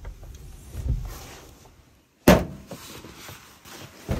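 Dull knocks and rumbling, then a sudden loud thump a little over two seconds in and a smaller knock near the end.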